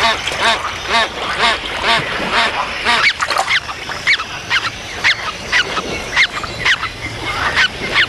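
Great crested grebes calling: a run of short, repeated calls, about four a second at first, then sharper falling notes at uneven spacing.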